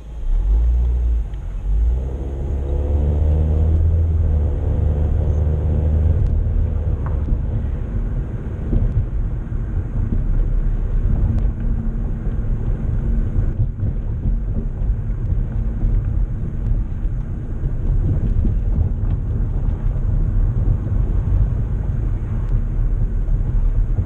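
Car heard from inside the cabin. The engine revs up as the car pulls away from a stop, its pitch rising over the first several seconds, then settles into a steady low rumble of engine and tyre noise while cruising.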